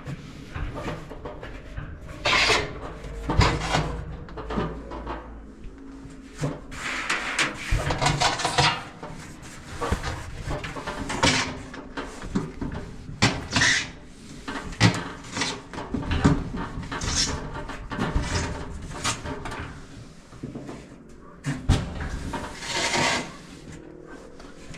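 Irregular scraping, rubbing and knocking from parts of an opened-up electric dryer being handled and worked on.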